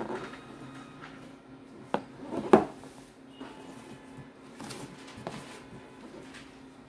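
A cardboard shoe box being handled and turned over on a tabletop: a few scattered knocks and scrapes, the loudest about two and a half seconds in, over a faint steady hum.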